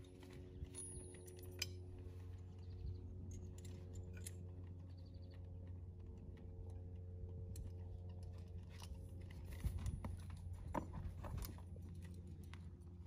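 Light metallic clinks and jangles of saddle tack, the cinch buckle and rings of a western saddle being handled as the saddle is cinched on a horse, over a steady low hum.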